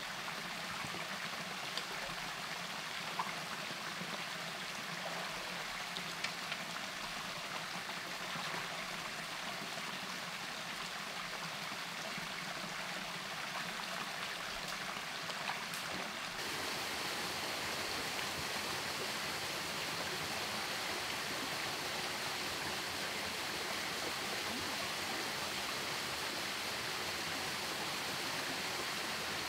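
Steady rush of a shallow flowing stream, with a few faint clicks in the first half. About halfway through it changes abruptly to a slightly louder, even rush of a small waterfall.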